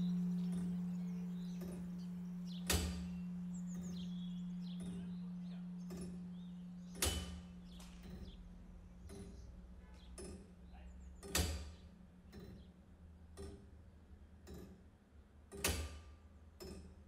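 A low bell tone slowly dying away, while sharp loud knocks sound about every four seconds with softer ticks and clicks between them.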